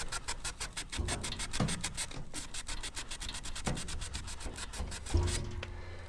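Green Scotch-Brite scouring pad scrubbing back and forth along a gas furnace's metal flame sensor rod, polishing off carbon buildup. It makes quick, even strokes, about five or six a second, which stop about five seconds in, with a dull bump or two from handling.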